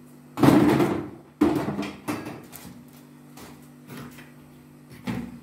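Household handling noises while cleaning a toilet: two loud scraping, rustling sounds about a second long each near the start, then a few lighter knocks.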